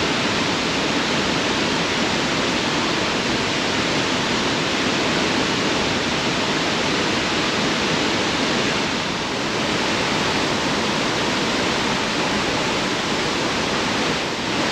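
Waterfall pouring steadily, a loud continuous rush of falling water.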